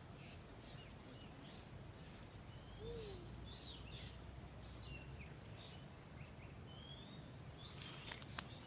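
Birds chirping and calling, with a couple of rising whistles and a quick cluster of chirps near the end, over a faint low rumble of outdoor background noise.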